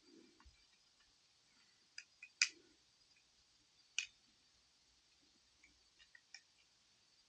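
Scattered light clicks and taps of hands and tools working on a smartphone's internals as a new battery is seated: a sharp click about two and a half seconds in, another at four seconds, and a few softer ticks near the end, over faint hiss.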